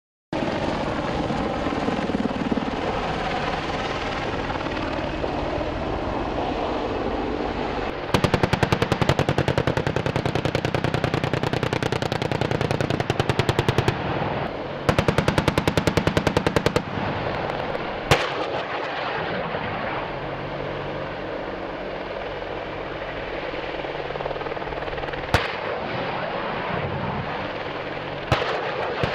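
Boeing AH-64 Apache attack helicopter's rotor noise, broken by two long bursts of very rapid fire from its 30mm chain gun, the first about six seconds long, the second about two. Later the rotor noise goes on with three single sharp bangs.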